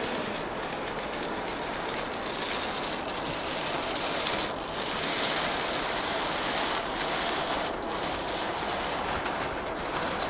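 Minitrains Brigadelok 009 narrow-gauge model locomotive running on a loaded test, pulling a rake of slate tipper wagons along the track, over a steady hiss. A short click sounds about half a second in.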